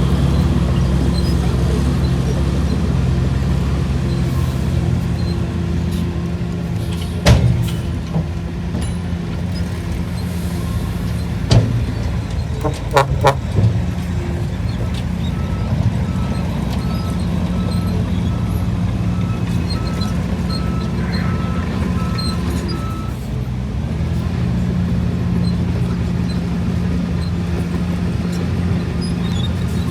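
Shantui DH17C3 bulldozer's diesel engine running steadily while pushing soil, with a few sharp metallic clanks partway through.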